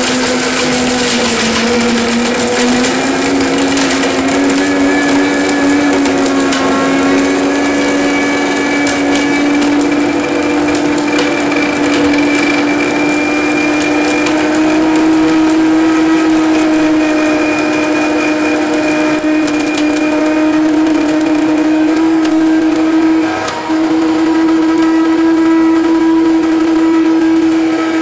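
Silver Crest BLW-02 1500-watt blender grinding a glass bottle to powder. The motor runs steadily, its whine rising slowly in pitch, over a harsh grinding and rattling of glass in the jar. It dips briefly near the end.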